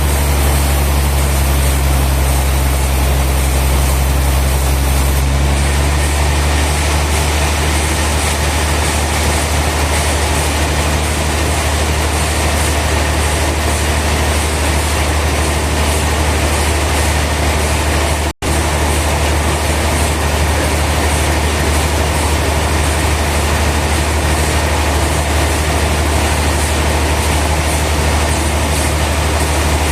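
Sawmill machinery running steadily: a loud, continuous mechanical noise with a strong low hum. The sound cuts out for a split second about two-thirds of the way through.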